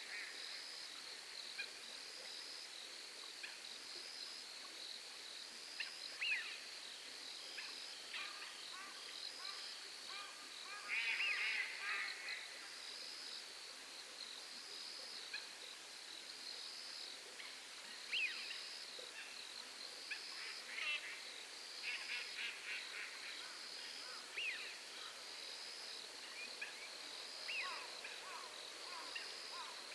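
Night insects chirping in a high, even pulse about once a second. Short animal calls break in several times, the loudest cluster about eleven seconds in.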